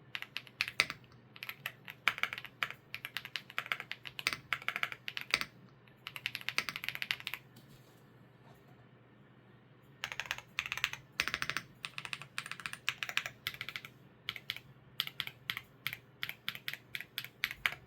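Typing on a WOBKEY Rainy75 Pro mechanical keyboard with Kailh Cocoa switches: quick runs of keystrokes, stopping for a couple of seconds about midway before typing resumes.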